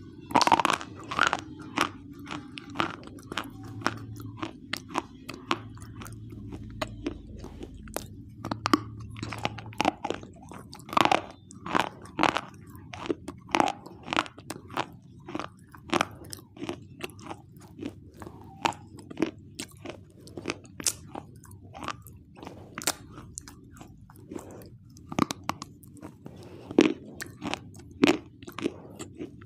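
Close-miked biting and chewing of a dry, brittle white chalk-like bar: sharp, irregular crunches, several a second, with grinding in between as the pieces are chewed.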